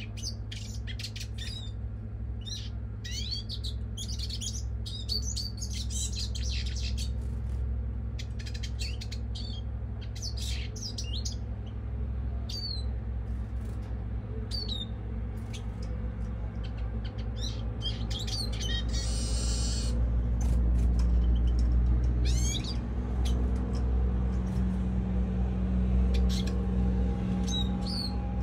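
European goldfinch calling: short high chirps and twitters scattered throughout, with a burst of rapid trilling about a second long roughly two thirds of the way in. A steady low rumble runs underneath.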